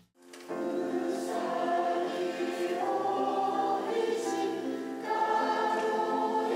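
A mixed choir of adults and children singing together, in long held notes, starting about half a second in.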